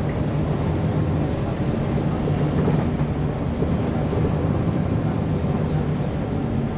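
Caterpillar C13 ACERT diesel engine of a 2009 NABI 416.15 transit bus running steadily, a low even hum heard from the rear of the passenger cabin.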